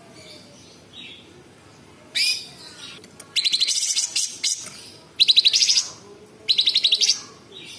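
Caged cucak cungkok songbird singing: a sharp falling call, then three rough, rapid rattling trills, each under a second long, the 'tembakan' bursts prized by bird keepers.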